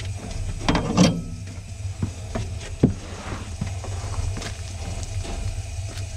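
Narrow gauge 2-6-2 steam tank locomotive running slowly, heard from the footplate as a steady low rumble with mechanical rattles and knocks. There is a louder clatter about a second in and a single sharp clank near three seconds.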